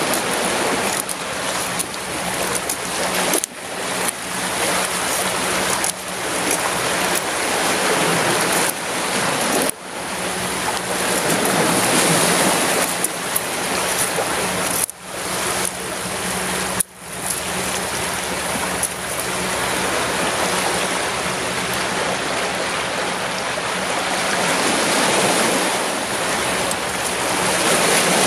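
Sea surf washing against a rocky shore: a steady rushing noise, broken by a few sudden brief dips.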